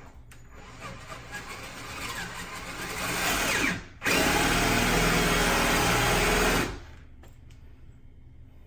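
Power drill boring a lock hole through a wooden door: it runs with rising loudness for a few seconds, pauses for an instant, then runs steadily at full speed for about two and a half seconds before stopping.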